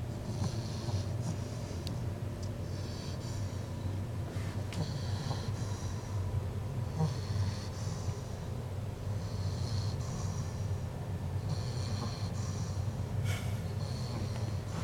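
English bulldog puppy snoring in its sleep: a low, steady snore with a whistling note on each breath, about one breath every two seconds.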